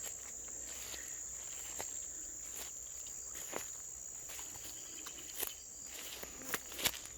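A steady high-pitched insect chorus, a single unbroken buzzing tone, with footsteps and light rustling of someone walking through crop plants. There are a few sharper clicks and snaps near the end.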